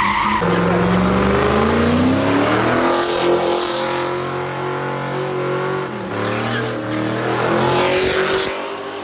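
A car engine held at high revs while the car spins donuts, with tyres skidding and squealing. The engine pitch climbs over the first few seconds, holds steady, drops briefly about six seconds in, then climbs again.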